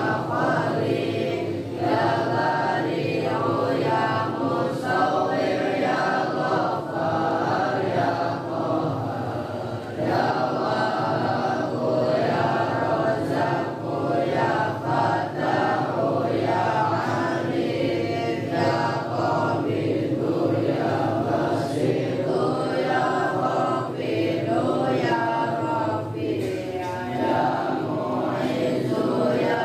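A congregation of many male voices chanting an Islamic devotional chant together in unison, in long sustained phrases with short breaks between them.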